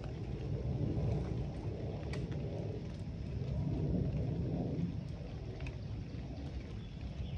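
Steady low rumble of wind buffeting the microphone, swelling about a second in and again around the middle, with a few faint ticks.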